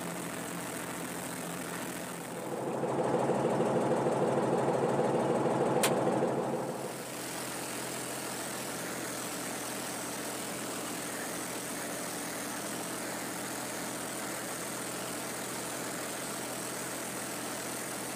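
Tractor engine and rotary mower running steadily, heard from inside the cab, while mowing a crop of moha. About two seconds in the sound grows louder for roughly four and a half seconds, with a sharp click near the end of that stretch, then settles back to the steady running.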